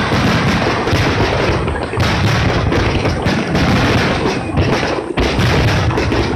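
A fireworks barrage: many aerial shells bursting in quick succession, the booms overlapping one after another with hardly a gap, with a short dip about five seconds in.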